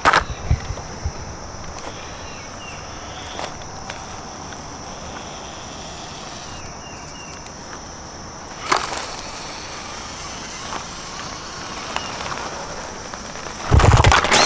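Redcat RC rock crawler's electric motor and drivetrain whining as it works over rock, with a few light knocks and a loud knock near the end.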